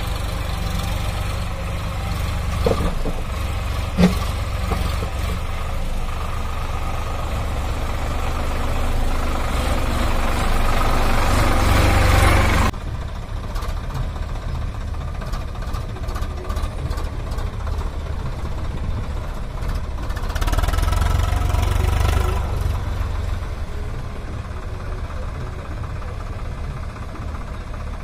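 Sonalika DI 35 tractor's diesel engine working hard under a heavy trolley load, growing louder over several seconds, with a sharp clank about four seconds in. About halfway through it gives way suddenly to a Swaraj 855 FE tractor's diesel engine hauling a loaded trolley, which swells for a couple of seconds near the middle of that stretch.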